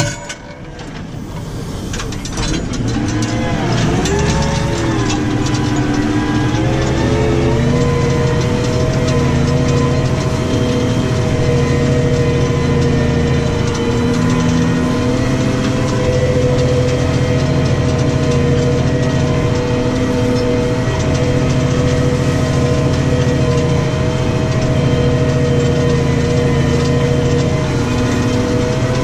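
New Holland T6 155 tractor engine running under load while ploughing, heard from inside the cab. Its pitch dips and wavers for the first few seconds, then it settles into a steady drone as it pulls the plough.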